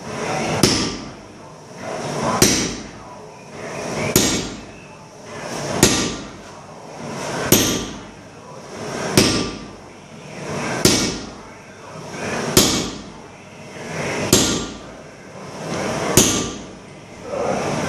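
Striker's sledgehammer hitting a handled top tool held on a glowing 1045 steel bar on the anvil. Ten blows fall at an even pace, about one every 1.7 seconds, each a sharp clang with a high ring.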